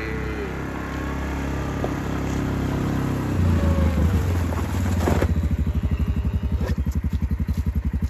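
Four-wheeler (ATV) engine running as the quad drives up close, growing louder. About five seconds in it stops and the engine settles into an even, rapid chugging idle.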